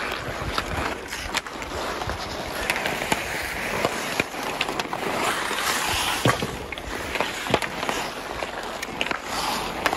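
Ice hockey skate blades scraping and carving across rink ice, with sharp clacks of hockey sticks striking the puck, the ice and each other.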